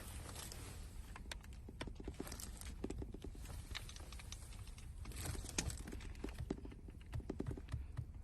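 Irregular light clicks, taps and knocks of parts being handled during hand work on a fuel pump assembly, some in quick clusters, over a faint steady low hum.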